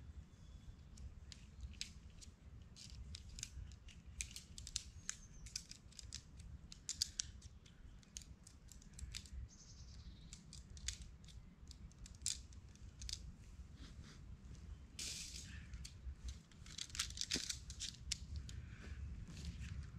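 Irregular sharp clicks and snips of hand work with a small tool, over a steady low rumble, with short rustling bursts about fifteen seconds in and again a couple of seconds later.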